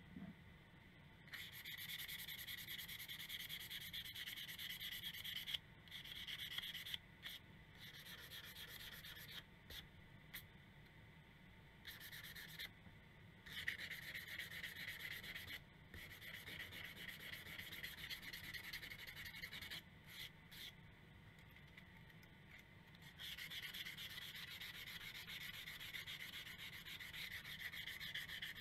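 A small hand-held abrasive tool rubbing back and forth over the steel blade and handle loop of one half of a pair of antique Henry T. Seymour shears. It makes a fast, scratchy rubbing in long spells with short pauses between them, as the metal is cleaned and polished by hand.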